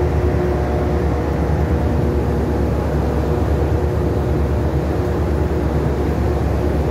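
Steady low rumble on the deck of a ship at sea: wind buffeting the microphone over the hum of the ship's machinery, with a few faint steady tones in it.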